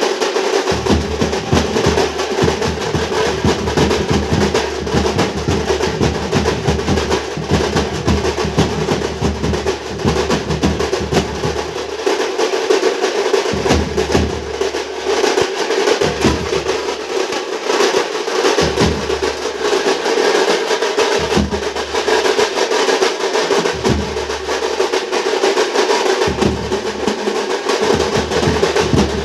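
Drum troupe playing loud, fast, continuous festival drumming, with rapid rolls and heavy strokes and a steady ringing tone held underneath.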